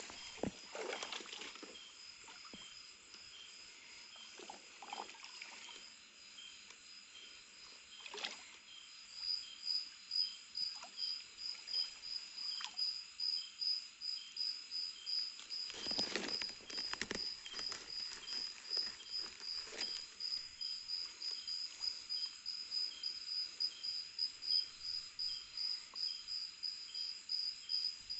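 Night insects, crickets, chirping in a fast, even pulse, a high, louder chirping joining about nine seconds in and running on, with a few short bumps and rustles, the loudest around the middle.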